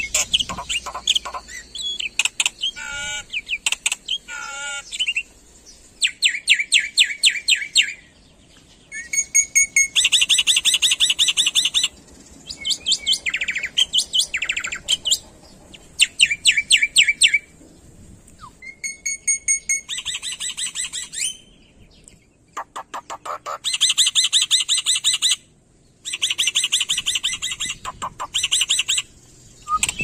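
Black-winged myna singing in loud bouts of rapid, chattering repeated notes, each bout lasting one to two seconds, with short pauses between.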